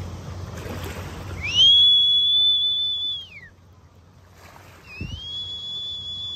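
Fishing reel drag whining twice as a hooked king salmon strips line: each whine rises quickly, holds a high steady pitch for a second or two, then falls away. The first starts about a second and a half in, the second near the end.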